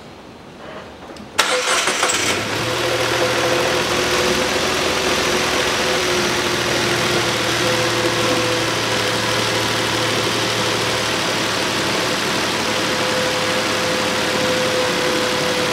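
Nissan Note's 1.2-litre three-cylinder petrol engine starting about a second and a half in, with a brief crank before it catches, then idling steadily. This is its first run on freshly filled oil after an oil change.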